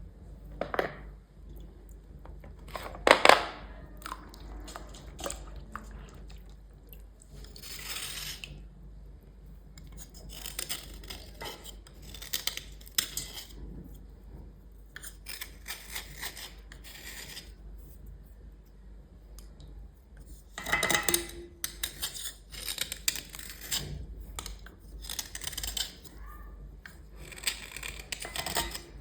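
Scraping and rubbing strokes in irregular bursts, the sharpest about three seconds in and another cluster about twenty-one seconds in.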